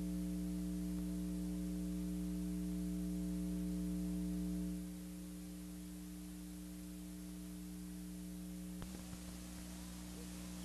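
Steady electrical mains hum, a low buzz with a faint hiss over it, which drops a step in level about halfway through. A faint click comes near the end.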